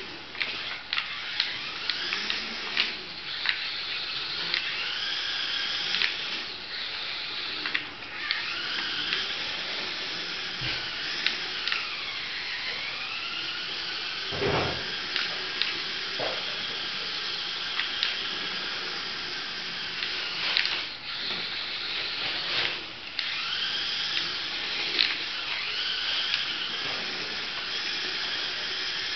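Small electric motor of a toy RC car whining, its pitch rising and falling as the car speeds up, slows and changes direction, with scattered clicks and knocks and one louder thump about halfway through.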